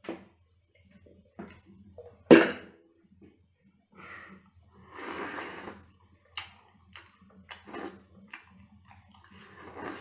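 Close-up eating sounds: wet chewing and small mouth clicks from a mouthful of sauced sea-snail meat. A single sharp knock about two seconds in is the loudest sound, and a breathy rush of air comes around five seconds in.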